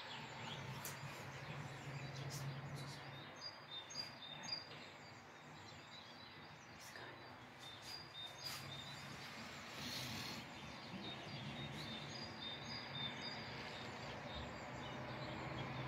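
Steady outdoor town background noise, a low hum and hiss, with small birds chirping now and then in short high notes. A few sharp clicks come through as well.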